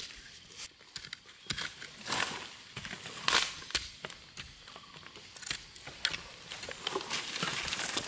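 A hand hoe chopping into dry soil, with crunching and rustling of dry bamboo leaves and twigs as it strikes and as feet move over the litter. The sound comes as irregular strikes and crackles, several in a few seconds.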